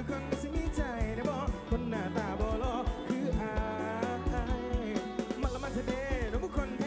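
Live band playing through a concert PA: a male lead singer with a wavering vibrato over drums, bass and electric guitars.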